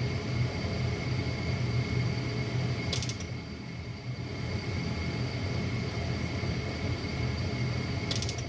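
Lennox Elite series furnace running with a steady low hum and a thin steady whine, broken twice, about five seconds apart, by a short burst of rapid clicking. It is a heater that will not start.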